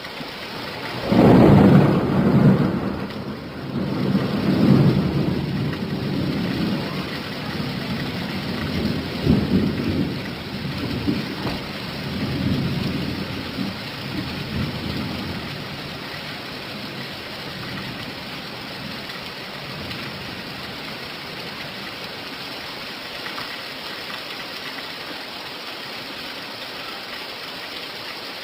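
Steady rain with a loud clap of thunder about a second in, rumbling and rolling in several swells before dying away into the rain alone.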